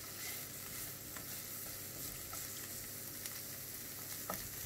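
Asparagus, onion and garlic sizzling gently in olive oil in a nonstick frying pan over a low flame, with a few light taps and scrapes of a wooden spatula as they are stirred.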